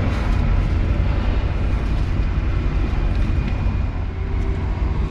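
Straight truck's diesel engine idling steadily, heard from inside the cab as an even low drone.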